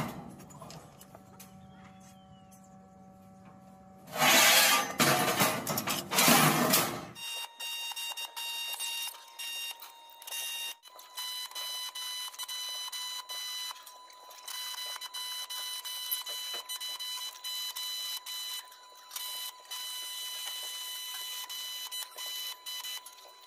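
Stick (electric arc) welding: the arc crackles and sizzles in runs that start and stop, over a steady high-pitched whine. A louder burst of rushing noise lasts about three seconds a few seconds in.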